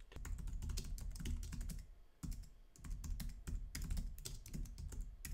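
Computer keyboard being typed on in quick, uneven runs of keystrokes, with a short pause about two seconds in, over a low steady hum.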